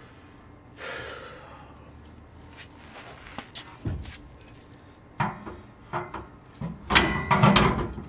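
Knocks and clanks of metal parts being handled while the air tank for a train horn is fitted under a pickup truck. There is a short scrape about a second in, then single knocks, and the loudest cluster of clanks comes near the end.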